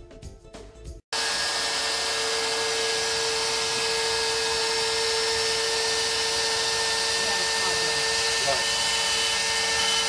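A brief music ending, then, about a second in, the sudden start of a steady, high whine from the X-Carve CNC's trim router spindle running under load as its endmill cuts through plastic sheet.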